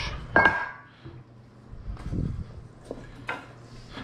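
A metal kitchen pan knocks once with a short ringing clank, followed by quieter handling and rustling noises and a light click.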